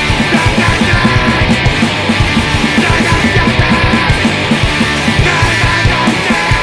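Fast punk rock song: a full band with electric guitar over a quick, steady drum beat.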